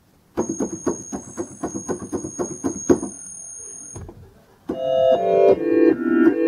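Concertmate-1000 electronic keyboard demonstrating its preset sounds. First a quick run of short, struck notes, about five a second, with two steady high tones above them. After a brief gap, about four and a half seconds in, the "Space" preset comes in as sustained, shifting synthesizer chords.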